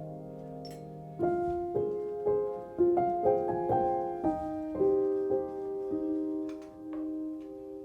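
Background piano music: a slow melody of sustained notes, with new notes struck about every half second from about a second in.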